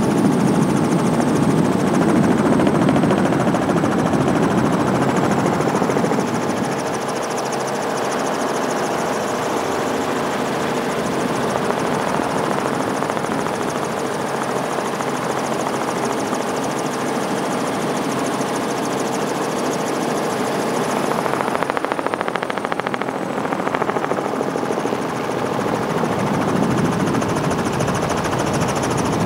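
Helicopter running steadily, heard from on board: a dense rotor and engine noise with a faint high whine above it, a little louder for the first six seconds.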